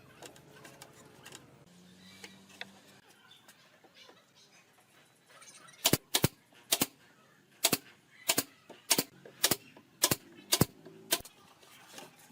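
A run of about ten sharp knocks, roughly two a second, starting about halfway in after a quiet stretch.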